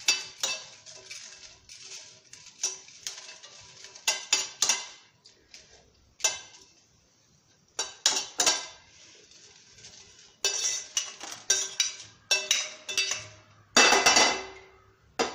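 A metal spoon scraping and clinking in a pan in clusters as dried red chillies are stirred while they roast, with a faint ringing from the pan. About fourteen seconds in comes the loudest, longest scrape, as the chillies are scooped out onto a steel plate.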